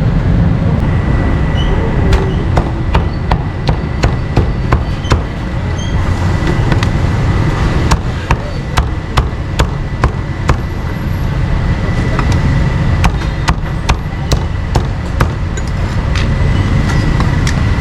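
Cleaver chopping meat with sharp, quick strokes, about two to three a second, in three runs, over a steady low rumble.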